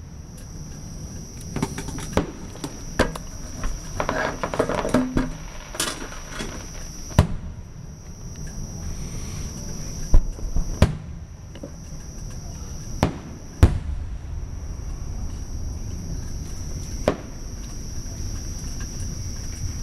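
Fireworks shells bursting: about ten sharp bangs at irregular gaps, with a spell of crackling around four to five seconds in. Crickets trill steadily at a high pitch underneath.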